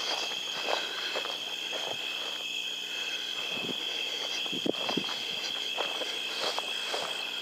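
Footsteps swishing through tall dry grass, a step or two at a time with a short pause before the middle. Under them runs the steady high trill of a night insect chorus.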